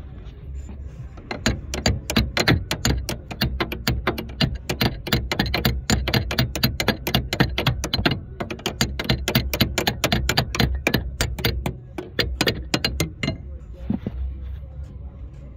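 Ratchet wrench clicking rapidly, several clicks a second, as a bolt on a steering universal joint is worked; the clicking starts about a second in and stops shortly before the end.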